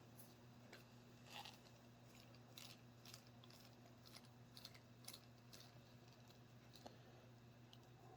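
Near silence with faint, scattered clicks of small metal parts being handled as the socket cap screws are taken out of a scale RC wheel, over a steady low hum.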